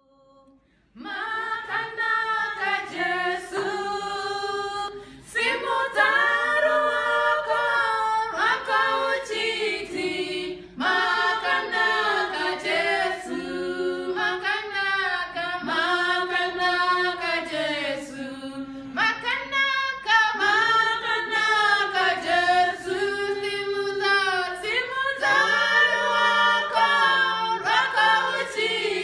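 A choir singing a cappella, several voices in harmony, starting about a second in.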